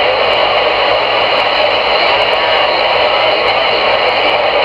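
Steady loud static hiss from a CRE 8900 CB radio's speaker on channel 22, with the receiver open and no voice coming through between transmissions.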